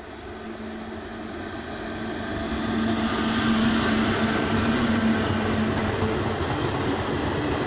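Electric locomotive hauling a passenger train passing at speed: the rolling noise grows as it approaches and is loudest about three seconds in as the locomotive goes by with a steady hum, then the coaches rumble past on the rails.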